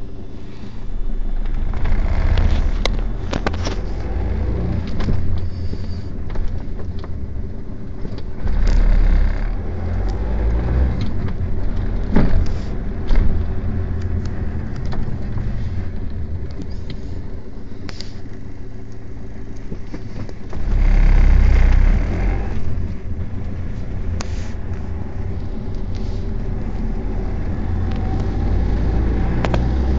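Engine and road noise of a moving vehicle heard from inside its cab: a steady low rumble that swells louder twice, about nine seconds in and again about twenty-one seconds in, with a few sharp knocks.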